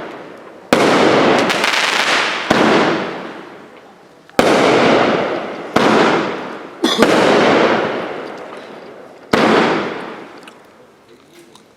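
Fireworks going off: about six sharp bangs, unevenly spaced a second or two apart, each followed by a long fading tail lasting a couple of seconds.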